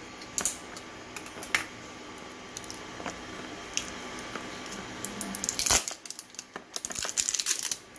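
Lid of a glass jam jar being twisted and pulled off: a few light clicks, a loud short crackle a little past halfway, then a run of quick crackling clicks near the end.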